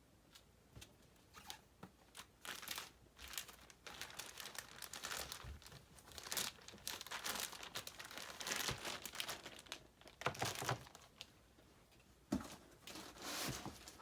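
Packing material crinkling and rustling in irregular strokes, with tearing sounds, as items are pulled from a shipping box.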